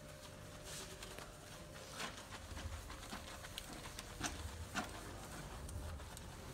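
Massage hand sounds: light, irregular taps and slaps of hands on the body, a handful of sharp ones over a faint steady hum.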